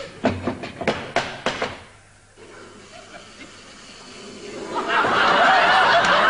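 Audience laughter in short bursts that die away about two seconds in. About five seconds in, loud laughter and applause swell up and carry on.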